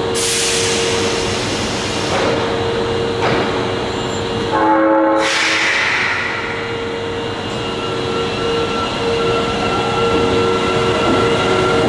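Osaka Metro Chuo Line subway train pulling out of the platform. Brakes release with an air hiss and there is a brief horn blast about five seconds in. Then the electric traction motors' whine slowly rises in pitch as the train gathers speed.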